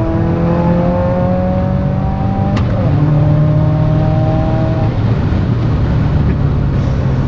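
Subaru WRX's turbocharged 2.0-litre flat-four accelerating hard through the gears, revs climbing in each gear. There is a quick upshift with a click about two and a half seconds in, and another change about five seconds in.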